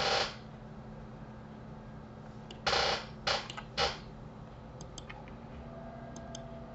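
Three short bursts of hissy noise a little under three seconds in, then faint computer-mouse clicks near the end, over a steady low electrical hum.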